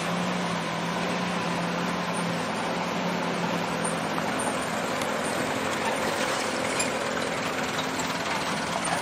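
Loaded dump truck's diesel engine running steadily as it pulls away on a gravel road, its low hum fading after about four seconds.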